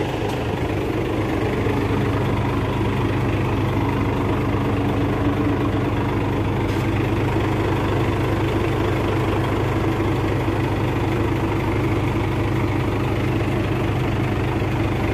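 Isuzu Gigamax truck's 6WF1 diesel engine idling steadily.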